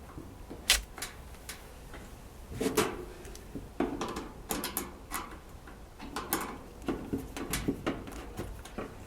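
Irregular metal clicks, knocks and rattles of a cord strain relief clamp being worked into the hole in a dryer's back panel, with one sharp click about a second in.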